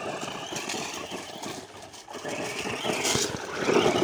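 Radio-controlled monster truck driving over dirt and dry leaves: its motor whining and its tyres crunching and scattering debris, getting louder about three seconds in.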